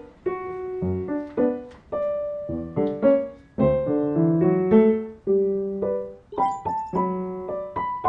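Background music: a light piano melody of short, quickly fading notes over a bass line, with a brief high shimmer about two-thirds of the way through.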